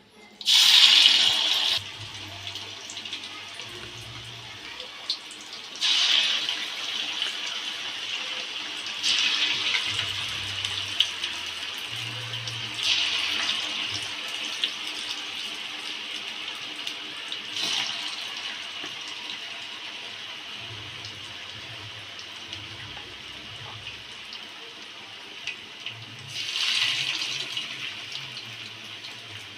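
Marinated chicken pieces going into hot oil in a small kadai. About six times, a fresh addition sets off a sudden loud sizzle that settles back into a steady frying hiss.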